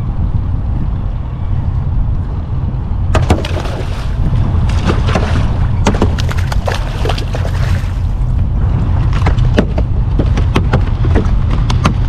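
Hooked salmon thrashing at the surface beside a small boat, a run of sharp, irregular splashes starting about three seconds in, over a steady low rumble.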